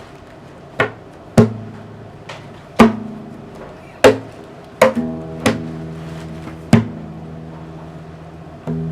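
A musical toy being struck unevenly, about eight times. Each hit is a sharp tap followed by a pitched note that rings on and fades, and the notes differ from hit to hit.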